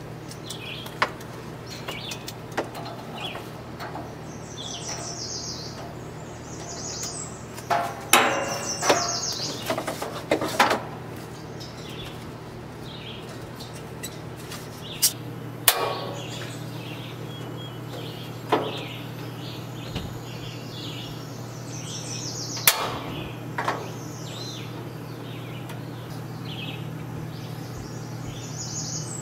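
Songbirds chirping and singing over a steady low hum, with scattered sharp knocks and clatter from a tabletop propane griddle being handled and set up, loudest in a cluster about eight to eleven seconds in.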